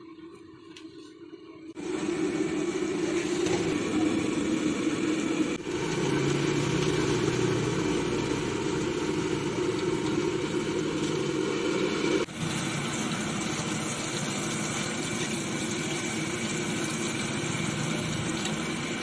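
Samosas deep-frying in hot oil in a large iron kadai over a burner: a steady loud sizzle and roar that comes in about two seconds in, with two brief breaks along the way.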